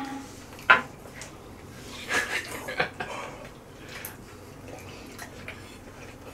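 Tableware clinking on a plate as people eat takoyaki: a sharp clink about a second in, a short run of clatter around two to three seconds in, then a few faint light taps.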